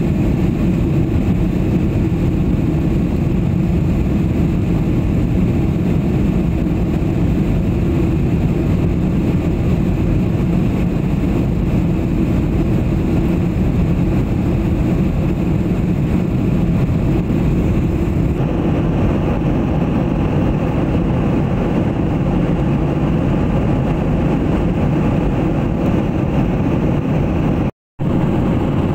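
Airliner cabin noise in flight: a steady, even rumble of engines and rushing air, heaviest in the low range. About two-thirds of the way in it turns a little brighter, and near the end it cuts out for a moment.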